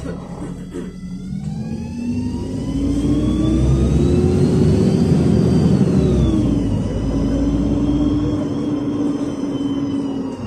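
A LiAZ 5292.67 city bus's YaMZ-53624 natural-gas engine and ZF six-speed automatic gearbox pulling away from a stop, heard from inside the cabin. The engine note and a higher whine climb together, drop as the gearbox shifts up about six seconds in, then hold steady.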